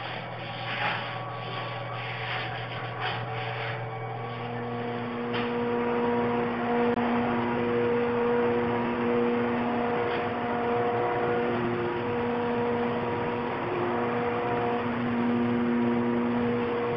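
A gloved hand rubbing over the wooden door panel in a few short strokes in the first seconds. From about four seconds in, a louder steady hum of several held tones takes over, its tones switching on and off every second or two.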